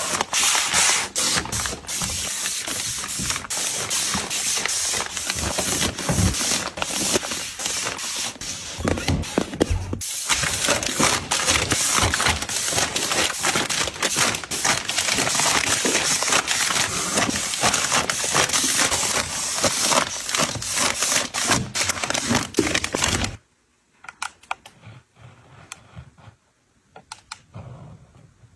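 Plastic-wrapped packs of tissues and face towels crinkling and rustling as they are handled and pushed onto shelves, full of small crackling clicks. Near the end the handling stops, leaving only a few faint taps.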